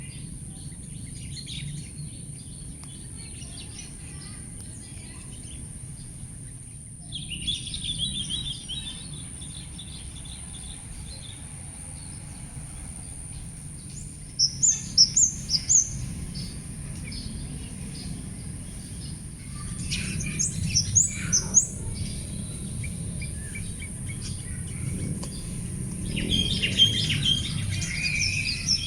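Wild birds chirping and calling, in several separate bursts: a chatter about seven seconds in, a quick series of high notes around the middle, falling chirps a little later, and more chatter near the end. A steady high-pitched hiss and a low background rumble run underneath.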